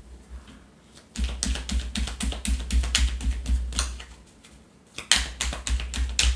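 A deck of oracle cards shuffled by hand: quick, light card clicks, about six a second, in two bouts, the first starting about a second in and the second about five seconds in.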